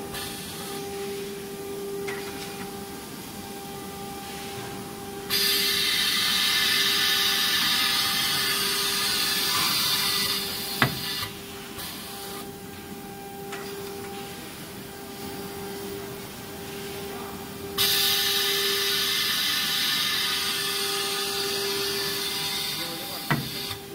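Automatic label-printing unit of a CNC panel router at work. A steady machine hum is overlaid twice by a loud hissing whir lasting about six seconds, each ending in a sharp click, as the label printer and pneumatic applicator arm feed and place labels on the panels.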